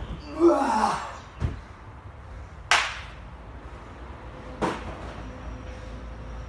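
A person doing burpees: a loud gasping breath about half a second in, then a dull thud and two sharp slaps, spaced about two seconds apart.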